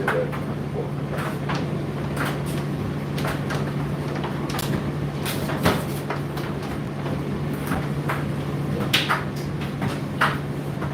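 Indesit IDC8T3 condenser tumble dryer running mid-cycle: a steady motor hum with irregular knocks and clicks as the load tumbles in the drum, the loudest knocks about six, nine and ten seconds in.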